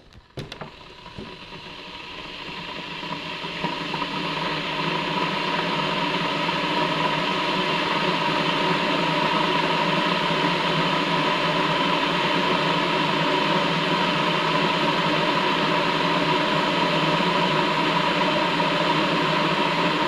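Electric kettle coming on after a couple of clicks: the heating water's hiss and rumble swells over about five seconds, then runs steady and loud. The kettle has started working on its own; the owner suspects a faulty push switch.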